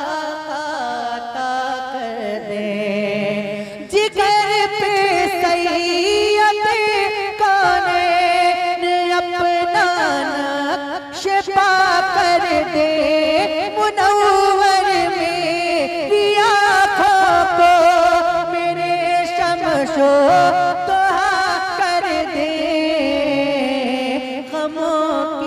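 A male naat reciter singing long, drawn-out lines, the pitch wavering and bending in ornamented runs with few clear words.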